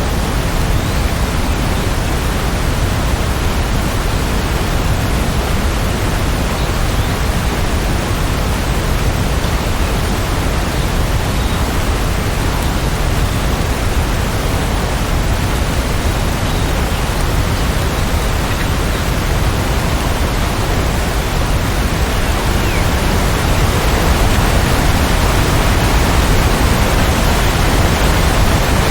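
Steady rain falling, an even, dense hiss with no drops or thunder standing out, growing slightly louder in the last few seconds.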